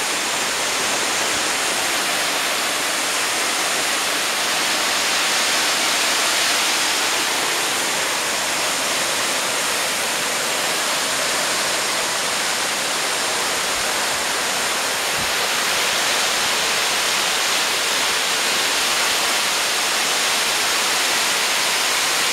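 Waterfall pouring down a rock cliff into a plunge pool: a loud, steady rush of falling water.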